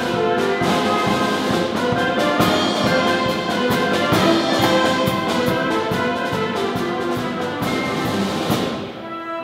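Military concert band playing: held brass and clarinet notes over a steady beat from the drum kit. The band eases off briefly near the end.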